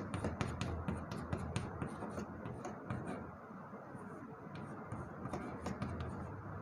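Chalk writing on a blackboard: a run of short taps and scratches as letters are written, thinning out a little after about three seconds.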